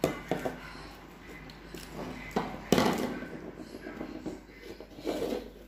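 Eating with the fingers: grilled tilapia and plantain picked from a foil tray and chewed close to the microphone, with a sharp, louder noise about two and a half seconds in.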